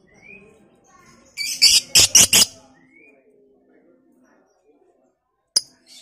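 Blue-mutation masked lovebird calling: a short rising chirp, then a quick run of loud, shrill squawks about a second and a half in, another rising chirp, and one sharp squawk near the end.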